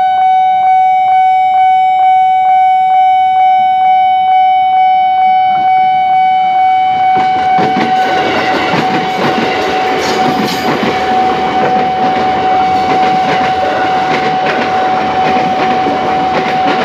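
Level-crossing warning alarm sounding a steady held tone over a fast ringing pulse, about two strikes a second. About seven seconds in, an electric commuter train starts passing close by, and its running noise and wheel clatter on the rails join the alarm and grow louder than it.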